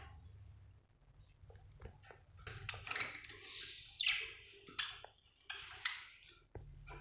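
Budgerigar chirping and chattering in short, quick calls that pick up a couple of seconds in, with a few sharp, loud chirps near the middle.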